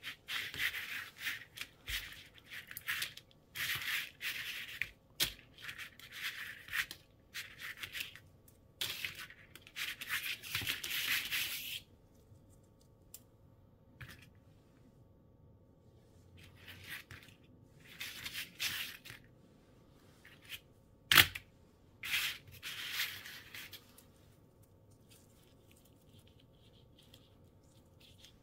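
Racket-string landing-net mesh rustling and scraping as gloved hands handle, squeeze and spread it, in irregular bursts with pauses. A sharp click about 21 seconds in is the loudest sound.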